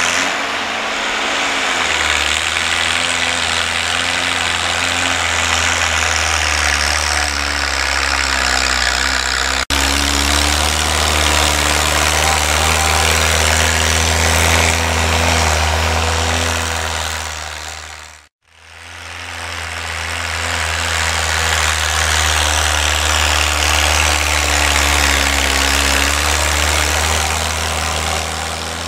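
A 1948 Farmall Cub tractor's four-cylinder flathead engine running at a steady speed as the tractor drives along. The sound cuts out for an instant about ten seconds in, then fades out and back in a little past halfway.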